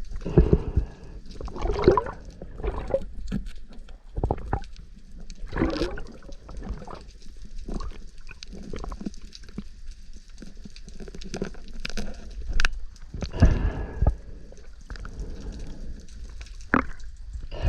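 Water gurgling and sloshing around a camera underwater, in irregular swells with scattered sharp clicks over a steady low rumble.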